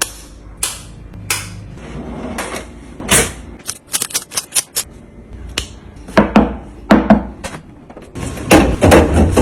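Food containers and packages clicking and knocking as they are handled, with a quick run of about six sharp clicks around four seconds in, then denser clattering and rustling near the end.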